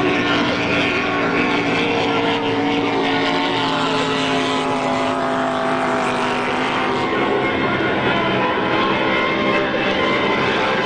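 Racing powerboat engines running steadily, a continuous loud drone whose pitch drifts slowly up and down.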